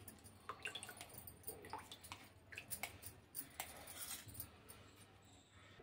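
A steel spoon scraping and tapping against a steel mesh strainer as amla pulp is pressed out: faint, scattered light clicks and scrapes that stop about four and a half seconds in.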